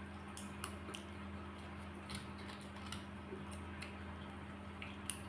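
Small scattered clicks and crunches of crab being eaten by hand: shell pieces handled and crab meat chewed, a few sharp ticks spread over several seconds, over a steady low hum.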